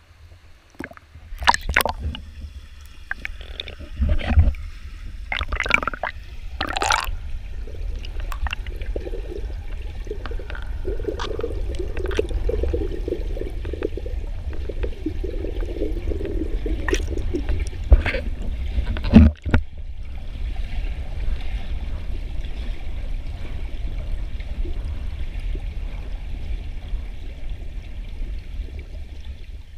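Water noise heard through a camera underwater in a swimming pool: a constant deep rumble as the camera moves through the water, with a flurry of splashes and knocks in the first several seconds and two hard knocks a little past the middle.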